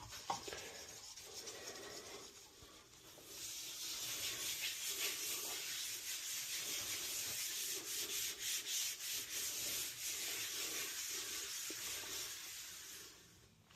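Hardwax oil being spread onto a sanded oak worktop: an applicator rubbing back and forth over the bare wood in quick repeated strokes. It starts about three seconds in and stops near the end.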